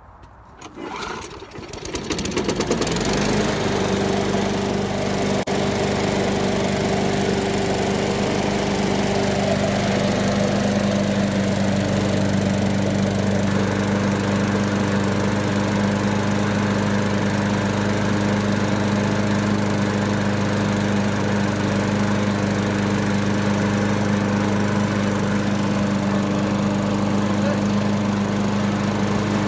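Briggs and Stratton single-cylinder four-stroke lawn mower engine starting about a second in, catching and settling into a steady run at its governed speed of around 3,000 RPM.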